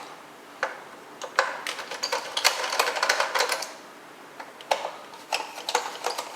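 Screwdriver backing Phillips screws out of a Roomba's plastic bottom faceplate: a run of small sharp clicks and ticks, in a longer spell about a second in and a shorter one near the end.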